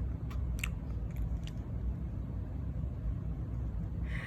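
Six-month-old baby smacking his lips and clicking his tongue as if chewing: a few short wet clicks in the first second and a half, over a steady low background hum.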